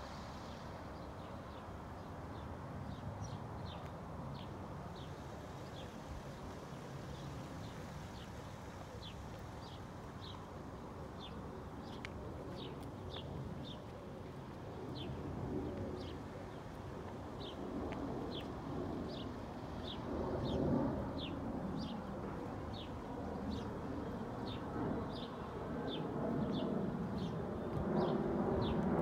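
A small bird calling over and over with short, high chirps, each dropping slightly in pitch, at about one a second. A steady low background rumble lies under it.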